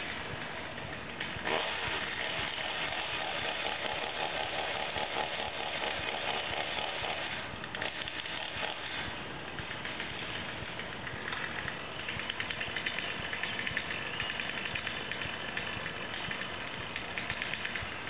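Chainsaw engine running, revving up sharply about a second and a half in, easing off around the middle, then running higher-pitched again through the second half.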